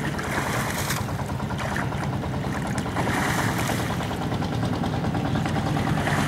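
Water sloshing and wet water-hyacinth leaves rustling as plants are pulled from the shallows, with scattered short splashes. A steady low engine hum runs underneath.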